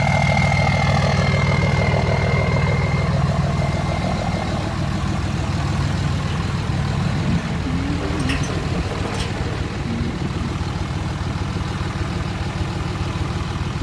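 Diesel pickup truck engine idling steadily, with a thin high whine that fades out after a few seconds.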